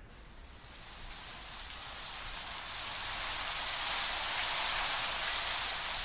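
Rain falling steadily, a dense patter of drops that fades in gradually over the first few seconds and grows louder.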